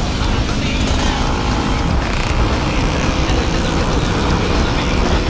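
Motor scooter riding at speed, its engine running steadily under a constant rush of wind and road noise.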